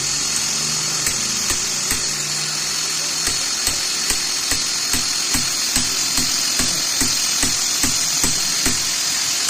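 Electric drill running steadily with a high whine while driving a swaging expander bit into a copper tube end. Regular clicks come about two to three times a second from about three seconds in.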